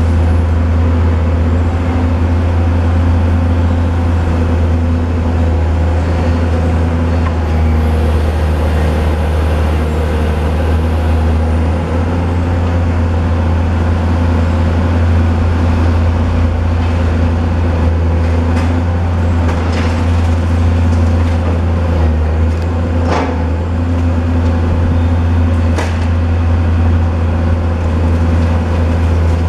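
Diesel engine of a long-reach demolition excavator running steadily under load, with a deep hum. A few sharp cracks and knocks of building material breaking come in the second half.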